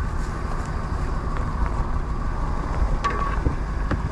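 Steady low rumble of a car engine running at idle, with wind on the microphone and a few light ticks.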